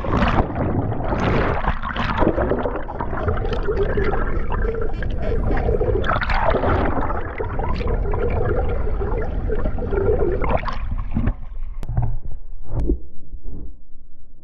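Seawater rushing and gurgling, heard underwater, in a dense continuous wash that starts suddenly. About eleven seconds in it breaks up into a few sharp splashes and knocks as the wash ends.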